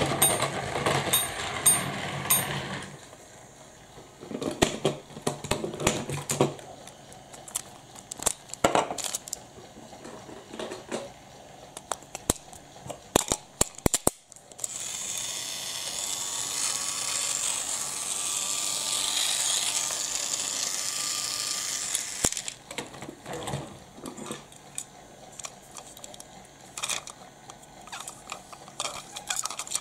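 Battery-powered Plarail toy train running, its small electric motor and plastic gears whirring, until it stops about three seconds in. Then come clicks and knocks of plastic toy trains being handled. A steadier, higher whirr of about eight seconds follows from the middle on, the Thomas engine's motor spinning its wheels freely while held in the hand, and more plastic clicks come near the end.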